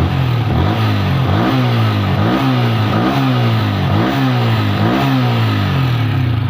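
Yamaha Vixion's 150 cc single-cylinder engine running, freshly fitted with a new cam chain. It is blipped about five times in quick succession, each rev rising and dropping back.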